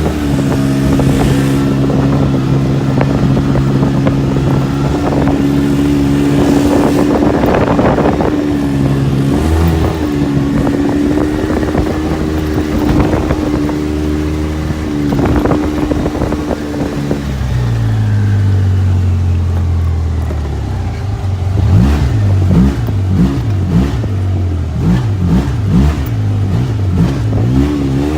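Polaris RZR side-by-side's engine running at a steady speed, its pitch dropping about two-thirds of the way through, then revving up and down repeatedly near the end.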